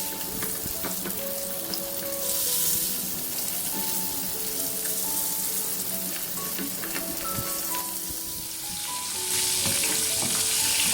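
Battered chicken pieces deep-frying in hot sunflower oil: a steady crackling sizzle that swells about two seconds in and again near the end. A simple background melody of single held notes plays over it.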